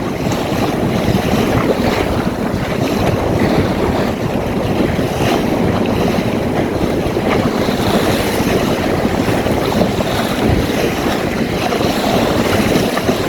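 Steady rush of wind buffeting the microphone, mixed with water washing along the hull of a small open sailboat under sail in a strong breeze.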